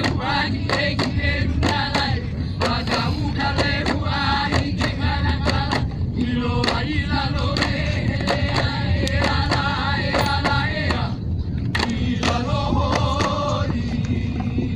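Hawaiian chant sung by several voices for a traditional hula, with sharp percussive beats roughly two or three a second and a steady low rumble underneath. The singing breaks off briefly twice.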